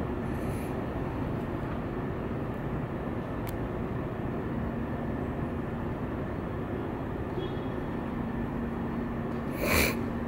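Steady low rumble of city background noise. A faint, even hum joins a little under halfway through, and a brief loud burst of noise comes near the end.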